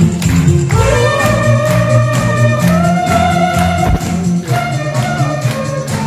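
Saxophone playing a slow gospel melody in long held notes over a backing track with bass and a steady percussion beat. The melody comes in with an upward slide about a second in and steps up to a higher held note around the middle.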